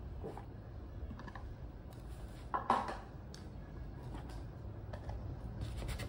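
Light taps and clicks of cardboard jewellery boxes and paper being handled on a table, with one louder knock about two and a half seconds in.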